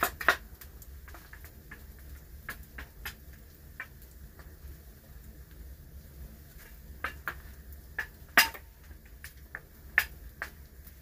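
Campfire of dry twigs burning and crackling, with irregular sharp pops and clicks, the loudest about eight seconds in, over a steady low rumble.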